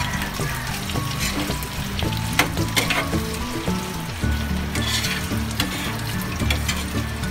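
Sliced hotdogs sizzling in hot oil in a metal frying pan, with several sharp clicks and scrapes as a spatula turns them against the pan.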